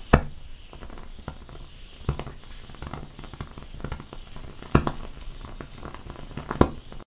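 Acetylene flame burning over calcium carbide on ice, with irregular small pops and crackles as the gas bubbles up through the melt and ignites. Four louder pops come about two seconds apart.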